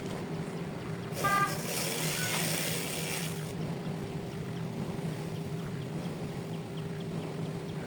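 An engine running steadily at an even pitch, with a short toot about a second in, followed by a couple of seconds of hissing noise.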